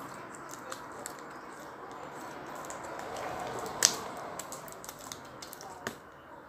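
Slime being squeezed and stretched by hand, with many small sticky clicks and crackles. A sharper pop comes about four seconds in and another about two seconds later.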